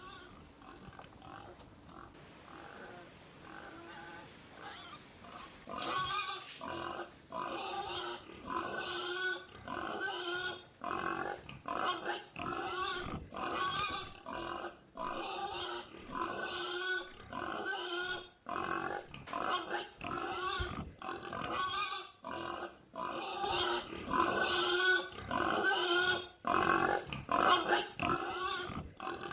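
A long run of pig-like squealing and grunting calls, about one a second. They are faint at first and grow louder about six seconds in.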